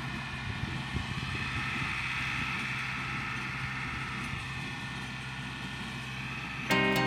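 John Deere 2510 tractor engine running steadily, probably pulling the square baler. Guitar music cuts in loudly near the end.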